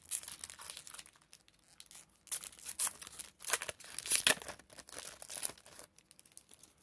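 A foil 2012 Bowman baseball card pack being torn open by hand, its wrapper crinkling and ripping in an irregular run of crackles, loudest in the middle, then going quiet as the cards come out.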